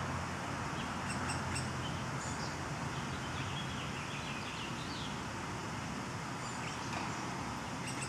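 Woodland ambience: faint, short bird chirps now and then over a steady outdoor hiss, with a low hum in the first couple of seconds.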